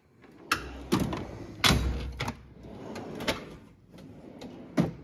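Steel drawers of a Snap-on Epiq toolbox sliding on their runners: one drawer shut and the next pulled open, with a series of knocks and clunks, the loudest a little under two seconds in and a last one near the end.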